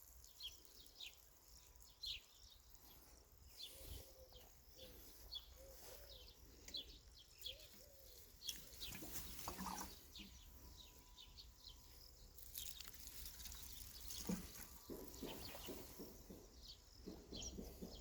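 Faint chirping of small birds: many short, high chirps scattered throughout, with a few soft knocks.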